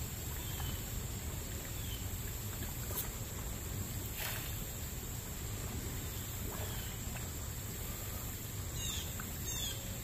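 Steady low outdoor rumble with faint bird chirps scattered through it, and two quick falling bird calls near the end.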